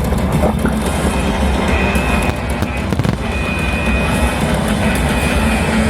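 Loud fireworks-show soundtrack music with heavy bass and repeated held high notes, mixed with firework bangs and crackling, thickest around the middle.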